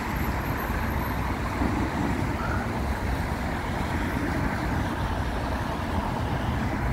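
Steady road traffic: the engines and tyres of passing cars and heavier vehicles, a continuous low rumble with no single vehicle standing out.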